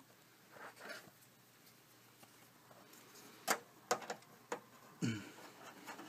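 Faint clicks and ticks of a Wi-Fi antenna being handled and fitted against the metal bracket of a PCI-E wireless card: one sharper click about three and a half seconds in, then a few lighter ticks and a short rustle near the end.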